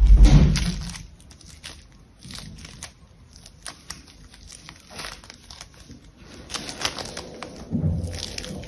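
Hands squeezing and kneading a lump of foam-bead clay, the tiny beads crackling and crinkling in a run of small irregular clicks. A dull thump comes at the very start, the loudest sound, and a softer one a little before the end.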